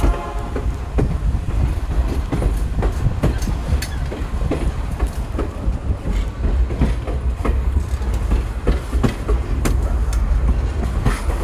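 Passenger train running on the rails: a steady low rumble with irregular clicks and clacks of the wheels over the track.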